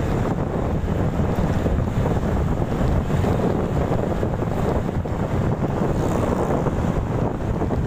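Wind buffeting the microphone on a moving motorcycle: a steady, low rumbling rush with no breaks.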